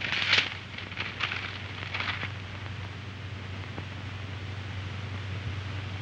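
Paper rustling in three short bursts over the first two seconds as a sheet is handled and unfolded, then only the steady hiss and low hum of an old film soundtrack.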